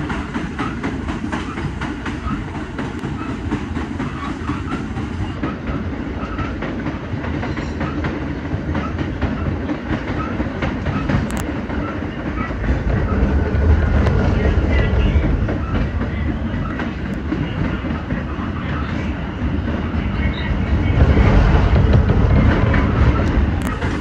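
Interior of a moving R46 New York City subway car at speed: steady wheel and rail rumble with rapid clicks of the wheels over the track. It grows louder about halfway through and again near the end.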